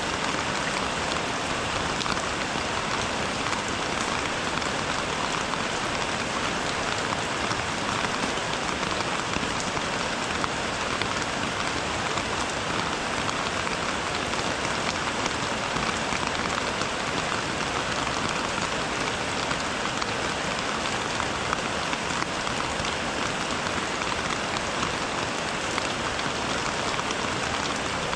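Steady rain falling: an even hiss with countless small drop impacts, unchanging throughout.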